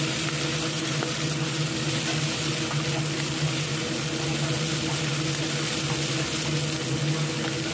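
Flat rice noodles being stir-fried in a non-stick pan with chopsticks: a steady frying hiss over a constant motor hum, with a few faint clicks of the chopsticks against the pan.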